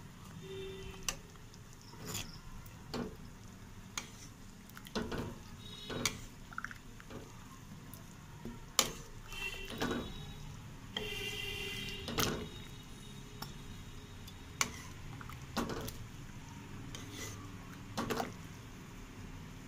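A metal spoon clinking and scraping against a metal pan in irregular knocks while ladling warm sugar syrup over a fried pastry, with the syrup pouring back into the pan.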